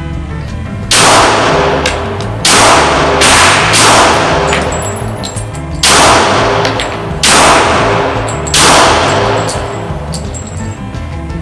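Glock G23 Gen4 pistol in .40 S&W firing a string of single shots, about one to one and a half seconds apart. Each shot echoes in an indoor range.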